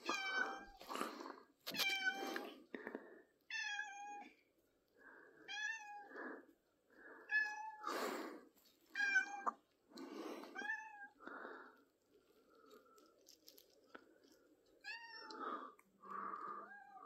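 Domestic cat meowing over and over, about ten short calls one to two seconds apart, with a pause of a few seconds past the middle.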